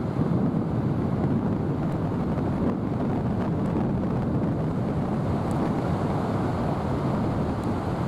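Wind buffeting the microphone, a steady low rumble, over the rush of surf on the beach.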